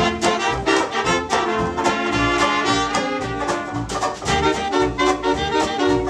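A 1930-style big dance band playing an instrumental passage. Saxophones, trumpets and trombone carry the tune over a double bass and rhythm section keeping a steady swing beat.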